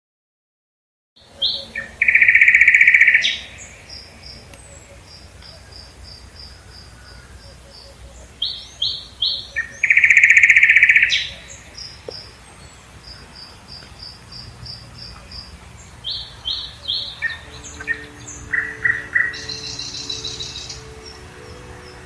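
A songbird singing loud phrases that begin about a second in: a few short high notes, then a long trill, repeated three times, with fast runs of thin high notes between the phrases. Faint sustained musical tones enter in the last few seconds.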